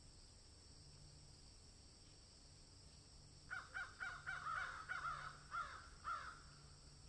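Faint steady background hiss, then about halfway through a quick run of about a dozen short, falling caw-like animal calls, roughly four a second, lasting about three seconds.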